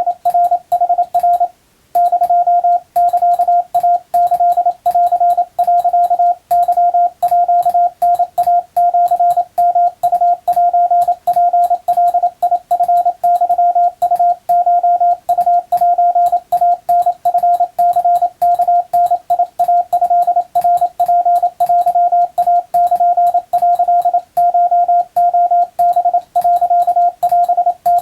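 Morse code (CW) practice signal: a single steady mid-pitched tone keyed on and off in a fast, continuous run of dots and dashes, with a short pause about a second and a half in.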